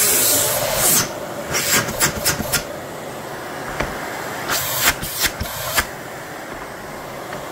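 Sebo D4 Airbelt canister vacuum motor running steadily on full power, quiet for a vacuum, with a louder rush of air in the first second. Several knocks and clicks come in two short clusters as the machine is lifted and turned on the wooden workbench.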